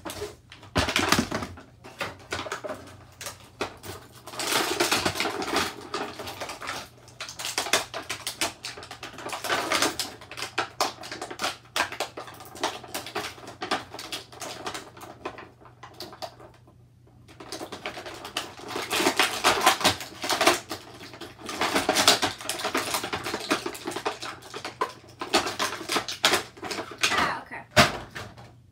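Action-figure packaging being opened by hand: a clear plastic bag crinkling, cardboard rustling, and many sharp clicks and taps of plastic, with a short lull about halfway through.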